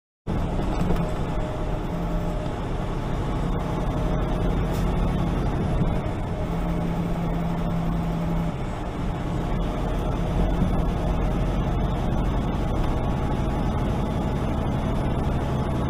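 Loaded semi truck's diesel engine droning steadily with tyre and road noise, heard from inside the cab while cruising at highway speed.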